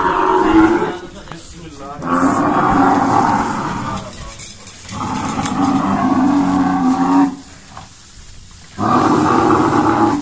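A sacrificial animal, its throat just cut, giving four long cries of two to three seconds each, with short gaps between.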